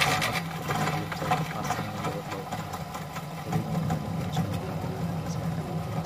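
Washing machine spin-dryer motor running with a steady hum and scattered rattling clicks, a cluster of clicks right at the start.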